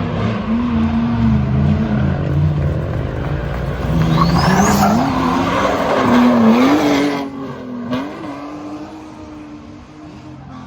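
Race car's engine revving hard and shifting up through the gears as it drives past, loudest a little past halfway, then dropping off quickly as it goes away.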